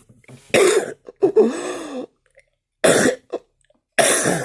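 A man coughing, about four harsh coughs with short gaps between, from the bad chest cold that he takes for bronchitis.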